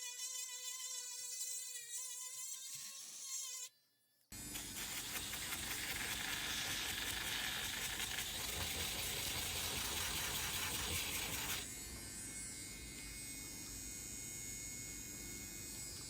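Small cordless rotary tool motor whining at high speed. After a brief break it runs again with a louder, rougher sound, which drops to a quieter buzz about twelve seconds in.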